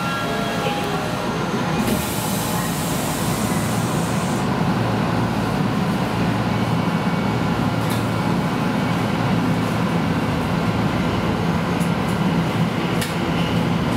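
Electric train running, heard from inside the carriage: a steady rumble of wheels on rail, with a brief high hiss about two seconds in.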